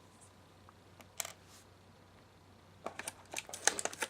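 Small plastic toy accessories and packaging being handled: one sharp click about a second in, then a quick run of clicks and taps near the end.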